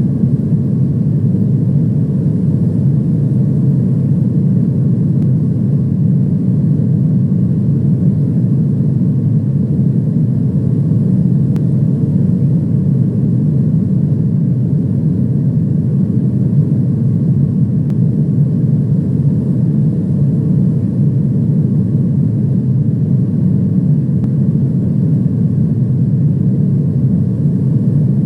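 Steady, unchanging rumble of an airliner in flight, engine and airflow noise. It holds an even level with no changes.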